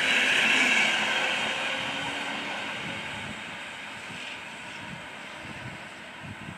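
A double-deck CityElefant electric multiple unit running past and pulling away down the track. Its wheel-and-rail rushing noise fades steadily as it recedes.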